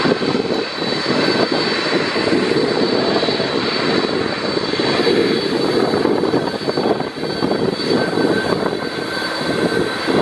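Boeing 767-300 jet engines running loud and steady, a dense rushing roar with a high steady whine over it. It comes from a 767 slowing on its landing rollout and then from an Air Canada Rouge 767-300 taxiing past; the sound shifts about halfway through.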